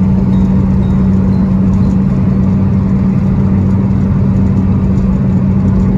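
Motor vehicle engine running at a steady speed, heard from on board as a loud, even hum.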